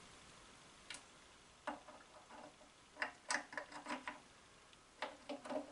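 Light metal clicks and clinks of shaper gear parts (lead screw, lead nut and bevel gear) being handled and fitted into the gear housing of the main casting. They come in a few short groups.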